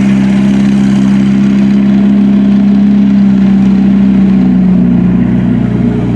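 M4 Sherman tank driving past close by, its engine running loud and steady; the engine's pitch drops slightly about four seconds in.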